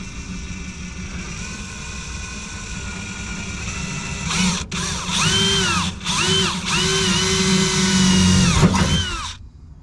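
Power drill drilling a hole, run in several trigger pulls. The motor speeds up and winds down with each one, starting about four seconds in and stopping shortly before the end, after a fainter steady whine.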